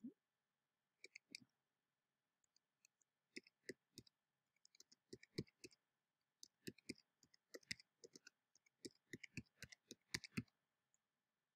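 Faint typing on a computer keyboard: irregular key clicks that come thicker through the middle and stop shortly before the end.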